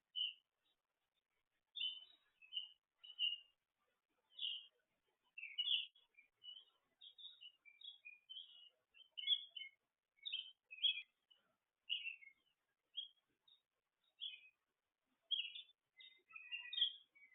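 Small songbirds chirping: a run of short, high chirps and twitters, a few each second, with clean gaps between them.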